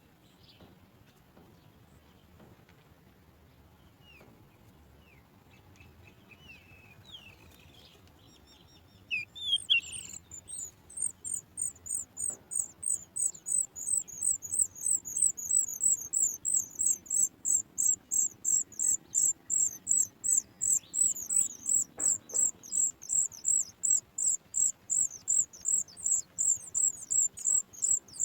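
Sooty chat nestlings begging for food: a fast, steady run of high, thin cheeps, about three a second, starting about nine seconds in, after a few faint softer chirps.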